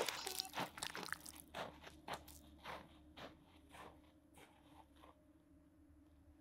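Rhythmic crunching, about two crunches a second, growing fainter and dying away about five seconds in.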